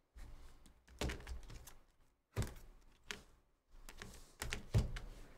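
Plastic-cased trading cards being dropped and set into plastic sorting baskets: a series of about five clattering knocks and clicks with short pauses between, the loudest near the end.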